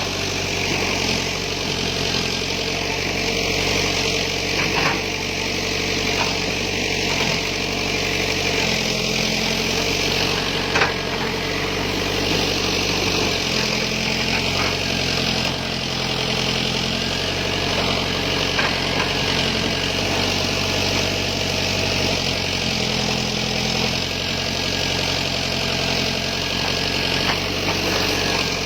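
Backhoe's diesel engine running steadily; its pitch shifts up and down for a few seconds at a time as the machine works. A few sharp knocks stand out over the drone, the loudest about eleven seconds in.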